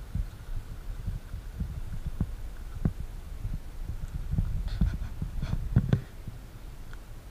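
Footsteps on dry fallen leaves and stones, irregular sharp knocks and rustles that come thicker and louder about four and a half to six seconds in, over a constant low rumble of wind and handling on the microphone.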